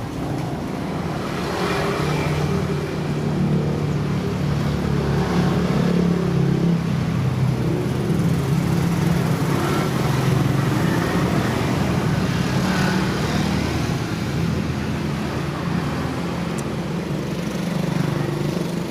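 Road traffic passing close by: vehicle engines running, with tyre and road noise.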